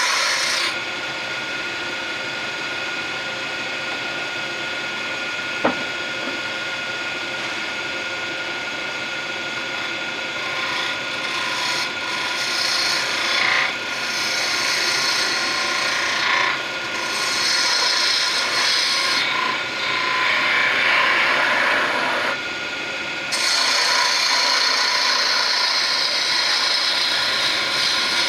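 Wood lathe running while a turning tool cuts a small spinning wooden spindle, giving a scraping, rasping hiss that comes and goes as the tool is worked, louder and fuller in the second half. A single sharp click about six seconds in.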